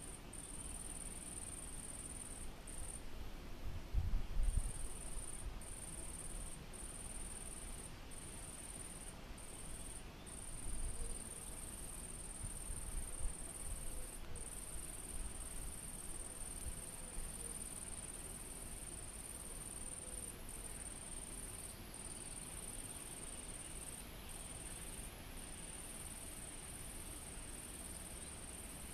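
Insects trilling steadily at a high pitch, cricket-like, broken by short pauses every second or so. Low rumbles rise about four seconds in and again around eleven to fourteen seconds.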